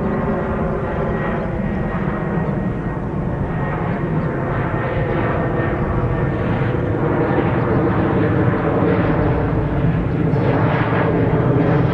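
Airplane flying overhead: a steady engine drone with a hum of several tones that slowly grows louder.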